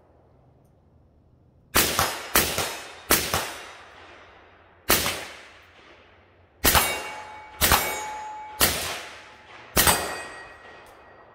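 Eight pistol shots fired at an irregular pace, each with a long echoing tail. A steady metallic ring lingers after several of the later shots, as from a hit steel target.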